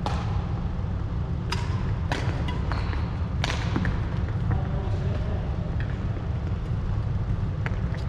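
Badminton singles rally: sharp clicks of rackets striking the shuttlecock, mixed with footfalls on the wooden court, most of them bunched between about one and a half and three and a half seconds in, over a steady low rumble.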